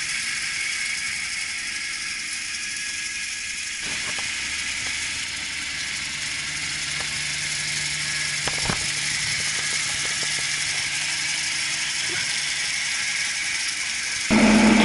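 Claas Arion 640 tractor with an Amazone fertiliser spreader running at a distance across a field: a steady low engine hum under a steady hiss, with a few faint clicks.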